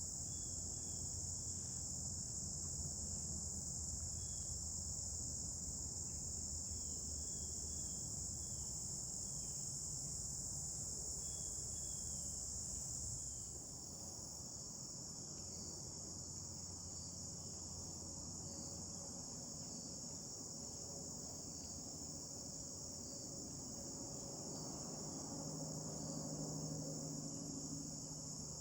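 Steady chorus of insects shrilling high and unbroken, dipping slightly in level a little past halfway.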